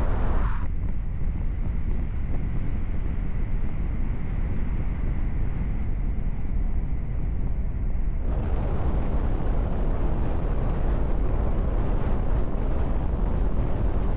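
Steady low rumble of a moving vehicle, road and wind noise. The sound turns muffled about a second in and brightens again about eight seconds in.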